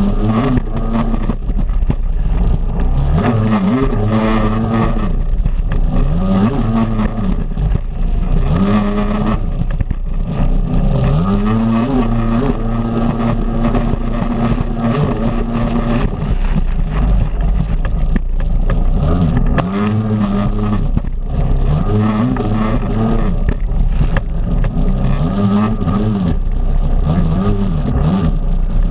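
Stand-up jet ski engine revving up and down again and again with the throttle, its note held steady for a few seconds midway.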